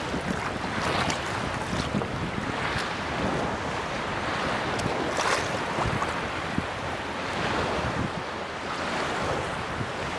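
Small lake waves lapping and splashing in irregular surges, with wind noise on the microphone.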